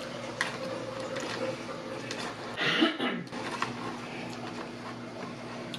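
Eating sounds close to the microphone: a person chewing, with faint clicks over a low steady hum, and a short breathy mouth noise about two and a half seconds in.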